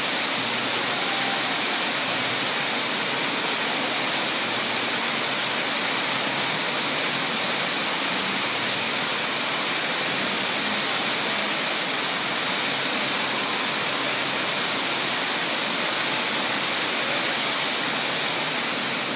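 Many vertical fountain jets splashing down into a shallow pool: a steady rush of falling water.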